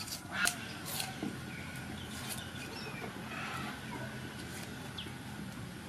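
Kitchen knife cutting and peeling an onion by hand: a few short sharp cuts, the loudest about half a second in. Birds chirp in the background.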